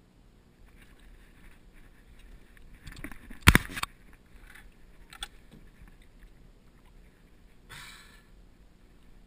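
A sudden loud splash about three and a half seconds in as a hooked American bullfrog is jerked out of the water weeds on a fishing rod. A few light clicks follow, then a short rustle near the end as the frog is grabbed by hand.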